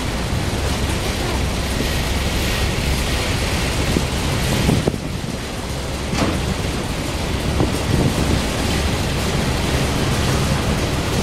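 Steady loud rush of wind on the microphone over a boat's running engine and water, with a few brief knocks around the middle.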